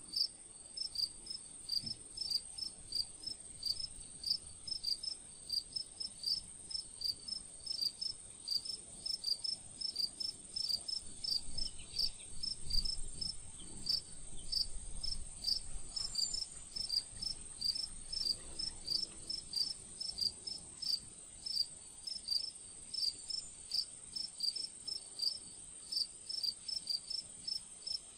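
Crickets chirping in a steady, even rhythm of about two to three chirps a second over a continuous high-pitched whine, with a brief low thump near the middle.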